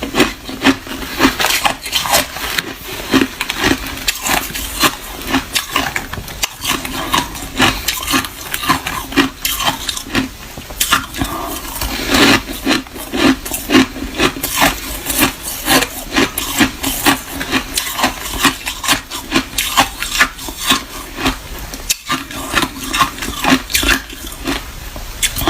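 Someone chewing crushed clear ice: a continuous run of sharp, crackling crunches, several a second.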